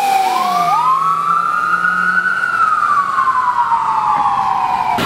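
Emergency vehicle sirens wailing as an ambulance passes: one siren tone drops away in the first second while a second wail rises for about two seconds and then slowly falls. The sound cuts off suddenly near the end.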